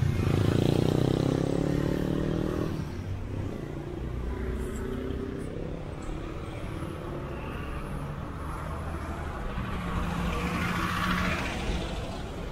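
Road traffic: a motor vehicle's engine pulling away with a slightly rising note that fades over the first three seconds or so, then a steady low traffic rumble, with another vehicle swelling past about ten seconds in.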